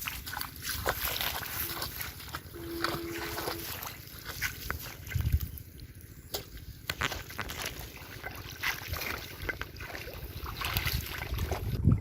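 Water sloshing and splashing in a pond, with many small clicks and knocks and an occasional low rumble.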